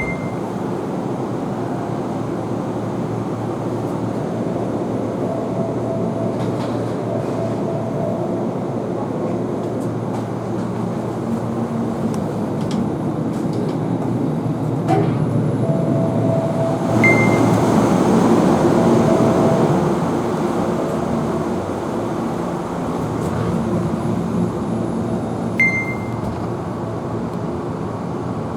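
Kintetsu limited express train running, heard from inside the car: a steady rumble with a faint motor hum, swelling louder for a few seconds about two-thirds of the way through. Three brief high-pitched tones sound at intervals.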